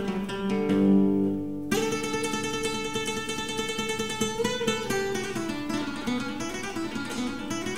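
Background music led by acoustic guitar: a held chord, then a steady strummed passage that comes in suddenly about two seconds in.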